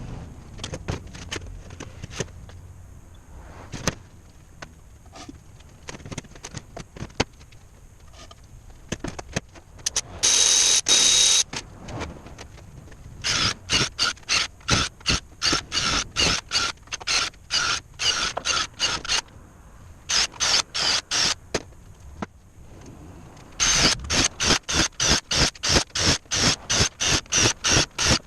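A handheld power tool runs once for about a second with a high whine. Then it is triggered over and over in short, evenly spaced bursts, about two or three a second, in three runs with pauses between, amid light clicks and knocks of handling.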